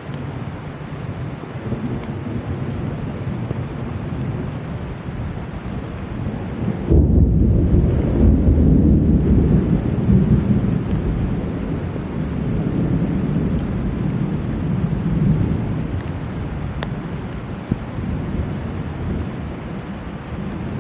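Heavy summer rain falling steadily during a thunderstorm. About seven seconds in, a loud rumble of thunder breaks in and rolls on, fading slowly over the next several seconds.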